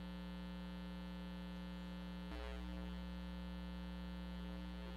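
Steady electrical mains hum in the sound system, a faint buzzing drone with many overtones that shifts slightly about halfway through.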